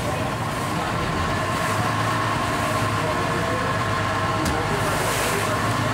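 Wooden river ferry's engine running steadily under way, a constant drone with a steady hum, over the wash of water along the hull.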